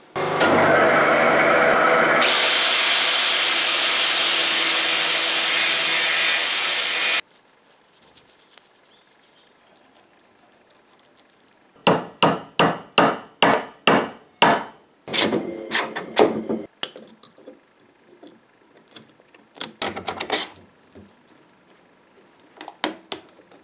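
Angle grinder mounted on a lathe's tool post grinding a steel axle down to size, a loud steady grinding noise that grows brighter about two seconds in and stops abruptly after about seven seconds. Later comes a run of about ten sharp, evenly spaced hammer taps on metal, followed by a few more scattered taps.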